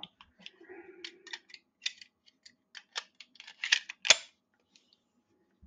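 Metal pistol magazines for a .38 Special wadcutter Colt 1911 being handled: a run of light metallic clicks and taps that come thicker toward the end, with one sharp, loud click about four seconds in.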